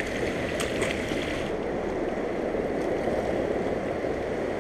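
Steady rushing of fast-flowing river water along a rocky shoreline. There is a brief, faint splash near the start as a released smallmouth bass drops back into the water.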